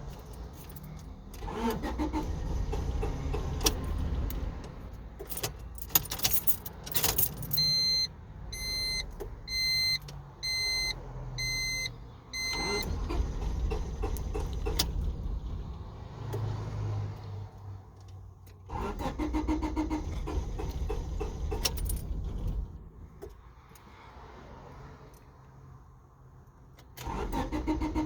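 1996 Honda Civic engine cranked by the starter in several attempts of a few seconds each, turning over without catching: the car's no-start after it has cooled down from a long drive. Between attempts a warning chime beeps five times, and keys jingle in the ignition.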